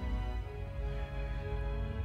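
Background music: slow, held notes over a deep bass.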